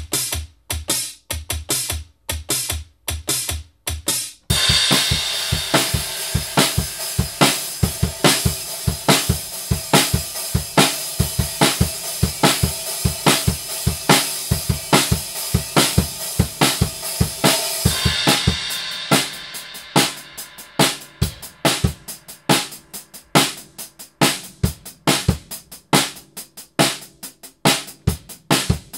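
A drummer plays a steady rock beat, starting on a Roland SPD-SX sample pad with dry, sparse electronic hits, then switching about four seconds in to the acoustic drum kit with cymbals ringing over it. The kit's kick and snare are triggered, so sampled kick and snare sounds are layered on the acoustic drums to keep the same full sound as the pad. The cymbal wash dies away after about 18 seconds, leaving a sparser beat.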